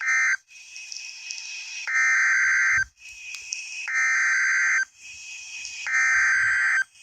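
Emergency Alert System SAME digital data bursts received over the radio: a brief burst at the start, then three harsh, buzzing one-second bursts about two seconds apart, over faint radio hiss. The three long bursts are the coded header that opens the next severe thunderstorm warning.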